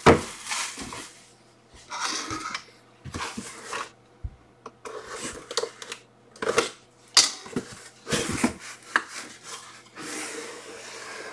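A white cardboard box being handled and opened by hand: irregular scrapes, rubs and knocks of cardboard on cardboard and on the table.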